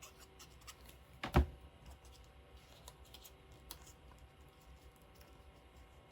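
A single sharp knock on the work table about a second in, amid faint scattered clicks and taps of paper and craft supplies being handled.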